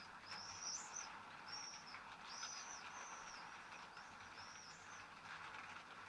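A songbird calling in a run of short, high chirps, each rising and then falling, about seven of them spaced roughly half a second to a second apart, over a faint steady hiss.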